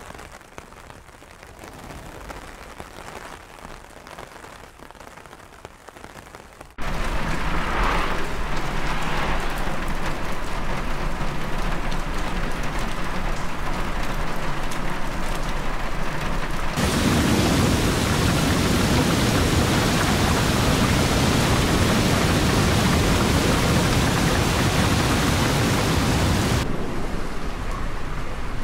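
Rainfall pattering as a steady hiss, faint at first, then suddenly much louder about seven seconds in, heavier and fuller from about seventeen seconds in, and lighter again near the end.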